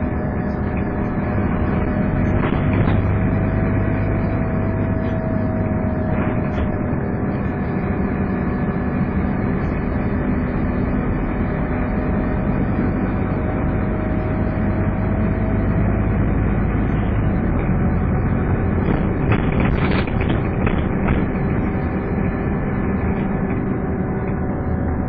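Scania N230UD double-decker bus engine running under way, with the steady vacuum-cleaner-like whine that gives this bus its 'hoover' name, rising and falling slightly in pitch. A few short rattles are heard now and then.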